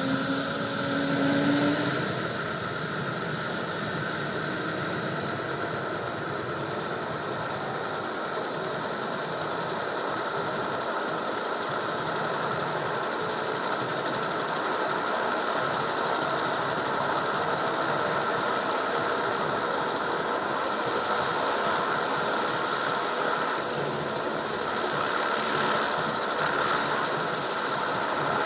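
Helicopter's turbine engine and rotor running steadily, with a high whine over a constant mechanical drone; a lower tone rises in pitch in the first two seconds.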